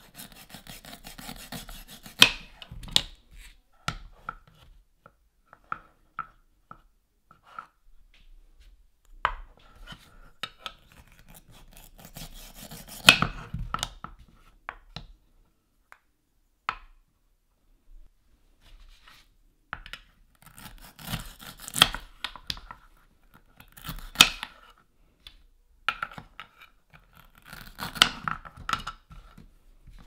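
A toy knife cutting velcro-joined wooden play fruit: rasping rips as the velcro halves tear apart, and sharp wooden clacks of the pieces and knife against a wooden cutting board, in several bursts with pauses between.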